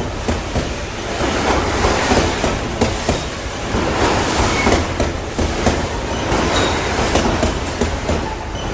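Freight train rolling past at close range, a steady rumble with wheels clattering over the rail joints and brief high wheel squeals now and then.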